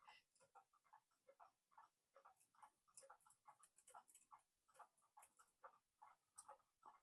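Faint, irregular small clicks and rattles of a cuckoo clock's brass weight chain and movement parts being worked by hand as the chain is fed around its sprocket.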